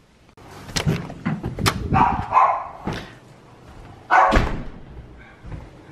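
Dogs barking: a string of short, sharp barks, the loudest about four seconds in.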